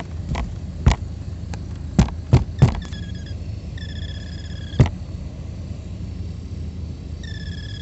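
2016 Alfa Romeo Giulia's HVAC blower motor whirring steadily, with about six sharp taps on it in the first five seconds, as when the motor shaft is tapped with a screwdriver. A high chirp comes in for about a second around four seconds in and starts again near the end. The owner puts the chirp down to worn or dry bearings, or debris in the blower chamber.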